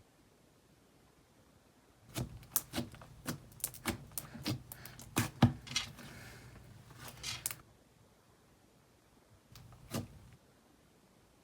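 Slime being squeezed and pressed by hand, giving a quick run of sharp clicking pops for about five seconds, then two more clicks near the end.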